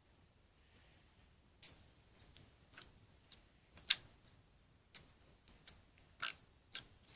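Slime being squeezed and worked in the hands, giving a string of irregular sharp clicks and pops, the loudest about four seconds in.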